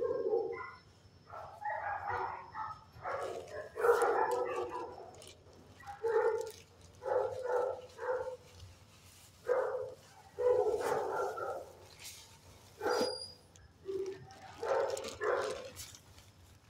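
Shelter dogs in the kennels barking over and over, in bursts about a second apart.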